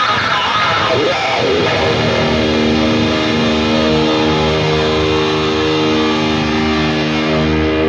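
Live heavy metal band, loud distorted electric guitars and bass: a dense wash of playing that settles about two seconds in into one sustained chord left ringing.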